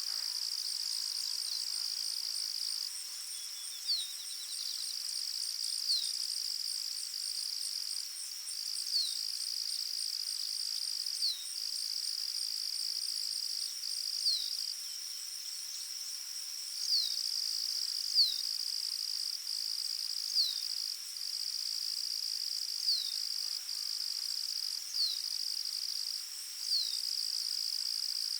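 Forest ambience of insects: a steady, high-pitched cricket-like trill that breaks off briefly now and then, with a short falling chirp every two to three seconds.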